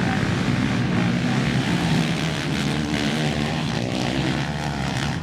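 ATV engines running in a steady drone.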